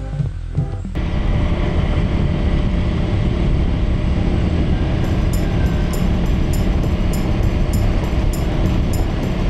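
A moment of background music, then from about a second in the steady rush of wind and engine noise of a motorcycle ride. Faint regular high ticks join about halfway through.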